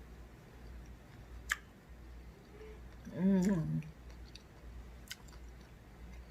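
A person eating chicken wings: faint chewing with two sharp clicks, and a short hummed "mmm" of enjoyment about three seconds in, the loudest sound.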